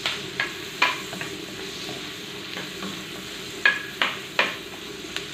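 Onions sizzling as they sauté in a frying pan, with a stirring spoon scraping and clicking against the pan in quick strokes: a few in the first second and a cluster of three near the end.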